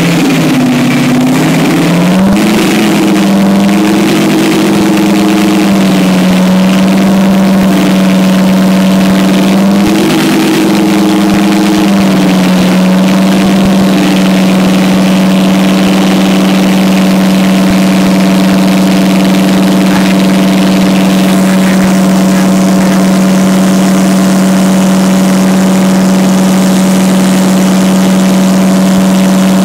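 Detroit Diesel 12V-149, a two-stroke V12 diesel, running loud, its speed rising and dipping several times in the first twelve seconds, then holding steady.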